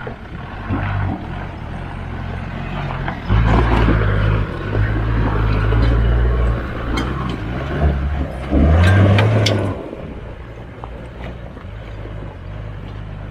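4x4 engine revving hard in several bursts under load as it tows another 4x4 up a steep off-road climb on a rope, quieter before and after. Scattered sharp clicks and knocks come through over the engine.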